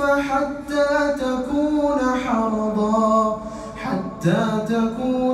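A single male voice chanting the Quran in the melodic recitation style, holding and sliding long notes, with a short break for breath about four seconds in.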